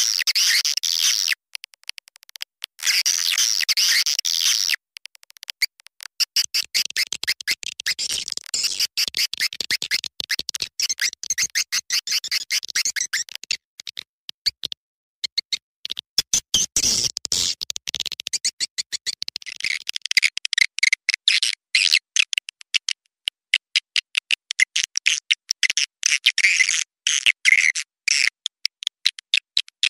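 Swiftlet call recording: rapid, dense twittering chirps and clicks in long trains with short gaps. This is the kind of lure sound played in swiftlet houses to call the birds in.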